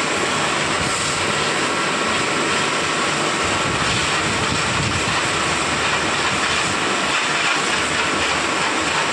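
A 300-bar high-pressure washer driven by a 10 hp motor, running steadily and spraying a hard, hissing jet of water onto the ground.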